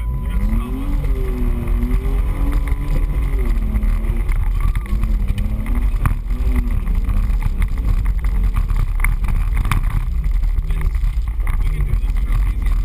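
An off-road 4x4's engine, heard from inside the cab, revving up hard in the first second, then rising and falling with the throttle over a heavy low rumble. Occasional sharp knocks come through as the vehicle drives the rough trail.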